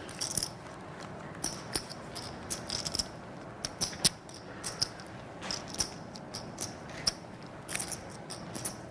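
Clay poker chips clicking and clacking as a player riffles and shuffles a stack in his hands while deliberating over a call: irregular sharp clicks, about a couple a second, some in quick little runs.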